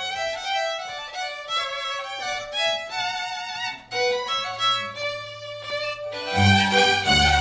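Children's highland folk band playing the instrumental opening of a Polish Christmas pastorałka, led by fiddle. About six seconds in, the fuller band comes in louder, with a low bass line underneath.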